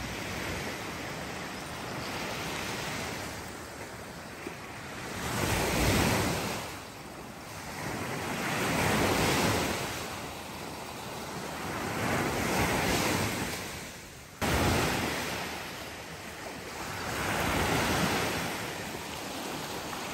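Small waves breaking and washing up on a sandy beach. The surf swells and fades every few seconds, with some wind noise.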